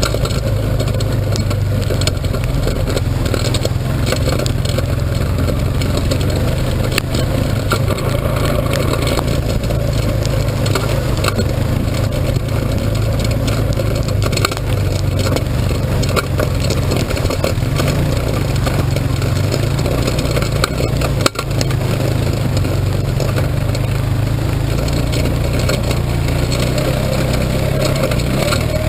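A vehicle engine running steadily, a constant low drone, with a brief dip about three-quarters of the way through.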